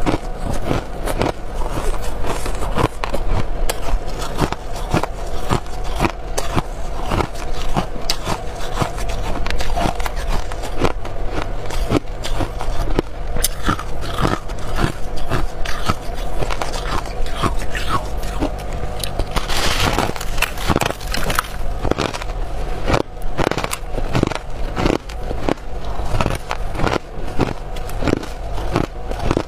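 Hard freezer frost being bitten and chewed: a steady run of crisp, irregular crunches, several a second.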